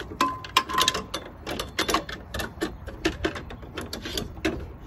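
Quick, irregular clicking and knocking of a table saw accessory being fumbled onto its storage hook on the saw body and worked into place by hand.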